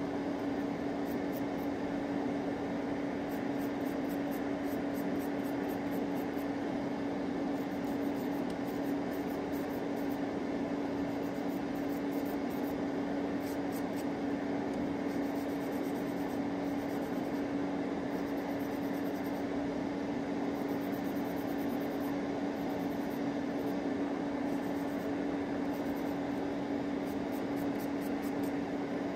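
Electric nail drill (e-file) running at a constant speed with a steady hum, filing gel off fingernails.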